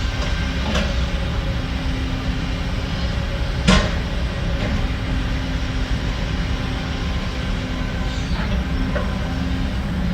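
Heavy diesel earthmoving machinery running steadily under load, with one sharp metallic clank a little under four seconds in and a few fainter knocks.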